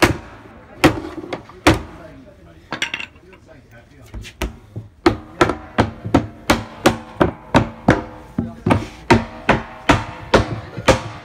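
Hammer blows on a wooden wine barrel's head and rim, knocking it loose to take the head out. A few spaced knocks come first, then from about five seconds in a steady run of about three strikes a second, each with a short ring from the barrel.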